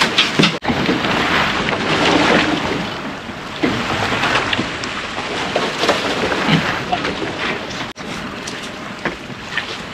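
Wind buffeting the microphone over the rush of sea water around a boat under way.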